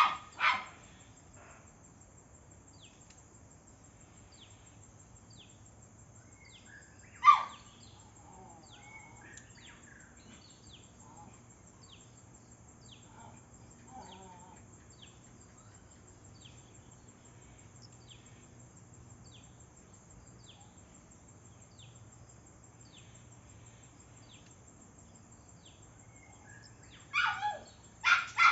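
A dog barks a few times: at the start, once loudly about seven seconds in, and several times near the end. Between the barks a bird repeats a short high chirp about once a second.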